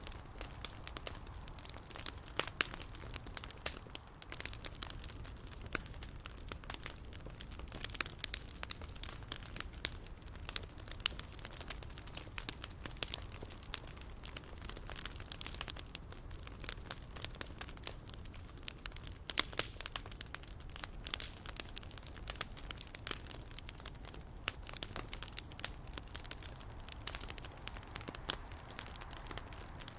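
Wood bonfire crackling: a dense, irregular run of small sharp pops.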